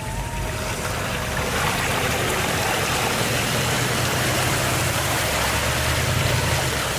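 Supercharged Range Rover V8 running under load while its tyres churn through mud and water, a steady splashing and sloshing that builds over the first second or two above the low note of the engine.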